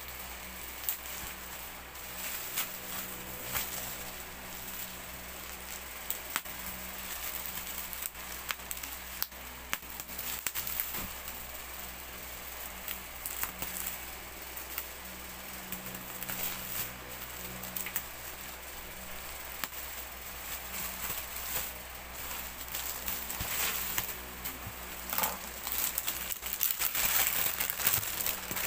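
Bubble wrap crinkling and rustling as hands pull it off a parcel, with irregular sharp crackles and clicks, louder in the last few seconds.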